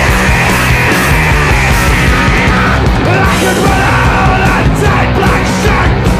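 Loud, fast rock music with shouted vocals, played as a soundtrack with a steady driving beat.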